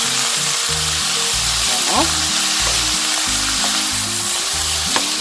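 Soybean sprouts and carrot sizzling steadily in a hot frying pan on high heat while being stirred and pressed with a wooden spatula and spoon, with one sharp tick near the end. The sizzle is the water coming out of the sprouts, which keeps them from burning.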